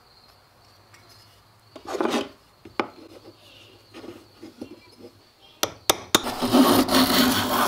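Blade being set in a Japanese wooden-bodied hand plane: a short scrape as the blade is pushed into the body, then a few sharp taps from a small wooden mallet. About six seconds in, a steady rasping begins, a hand plane shaving along a wooden board.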